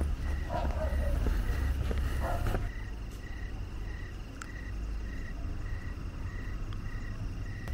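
Night-time animal calling: a short high chirp repeating evenly about twice a second over a fainter steady trill. A low rumble on the microphone runs under it for the first two and a half seconds, then eases off.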